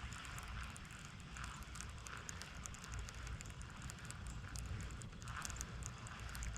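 Wind buffeting the camera microphone in a steady low rumble, with many faint crackling ticks throughout.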